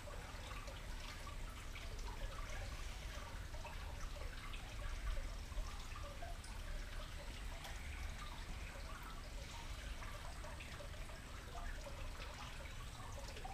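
Garden water feature trickling and dripping steadily, over a low steady rumble.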